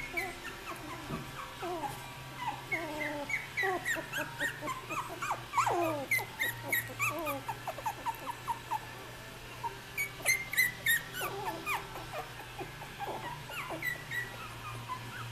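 Young Australian Terrier puppies, about three and a half weeks old, whimpering and squeaking: many short, high-pitched squeaks and whines overlap, most falling in pitch, with a brief lull about halfway through. A steady low hum sits underneath.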